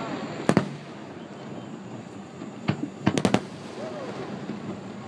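Aerial fireworks shells bursting: a double bang about half a second in, another near the end of the third second, then a quick run of three just after three seconds.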